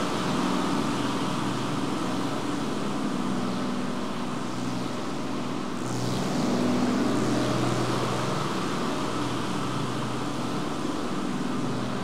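Experimental soundtrack drone: a dense wash of noise over steady low hum tones, with a hiss sweeping downward about six seconds in.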